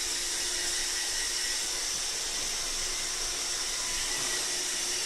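iRobot Roomba 631 robot vacuum running: a steady motor whir and airflow hiss with a faint low hum underneath, unchanging throughout.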